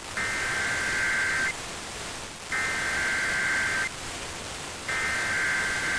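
NOAA Weather Radio SAME alert header: three identical bursts of two-tone digital data, each just over a second long, over a steady hiss of radio static. The bursts carry the coded alert, here the start of a winter storm watch.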